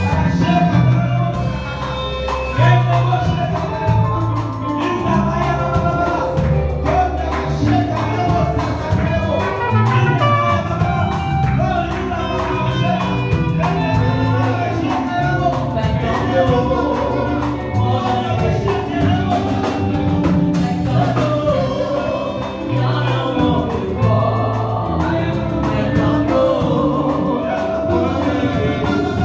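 Live gospel music: a band of keyboards, electric guitar and drum kit plays a steady beat while singers sing through microphones.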